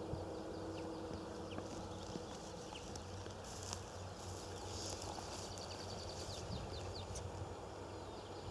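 Quiet outdoor ambience: a low steady rumble with small birds chirping high, including a run of quick chirps in the second half.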